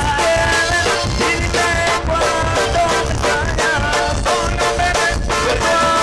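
Norteño band music, an instrumental passage with a steady beat and no singing.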